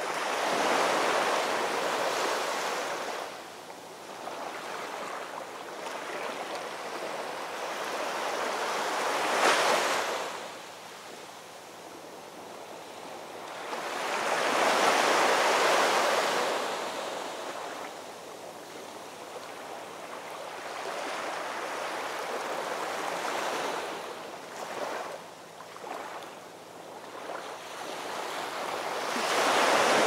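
Small waves breaking and washing up a sandy beach among rocks. The rush of surf swells and fades every several seconds, with the loudest washes near the start, about halfway through and at the end.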